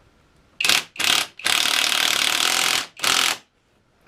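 A power tool running in four bursts, one of them about a second and a half long, as it does up the fork top caps on a Kawasaki S1C front fork.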